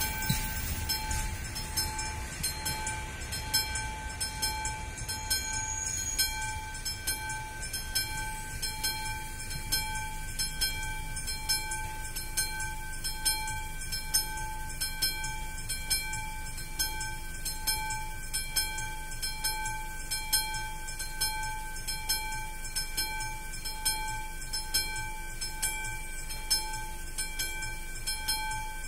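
Railway level crossing's warning bell ringing in an even, repeating pattern, a pulse about once a second, while the crossing lights flash.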